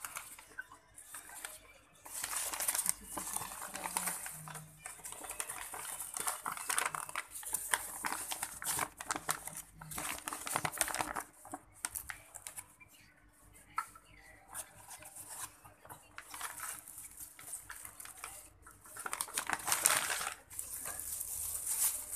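Plastic bag and paper food wrapping rustling and crinkling irregularly as fried chicken pieces are unwrapped, with light clicks and knocks as they are tipped onto a glass plate.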